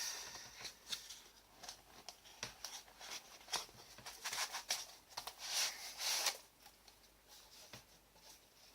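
Knife packaging being handled by hand: light rustling, scraping and scattered small clicks of box parts and foam insert, with a longer rustle about six seconds in.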